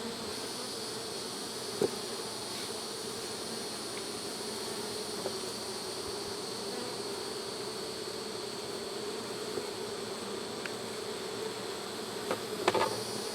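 Honey bees buzzing steadily around an open hive during a frame inspection, with one short knock about two seconds in.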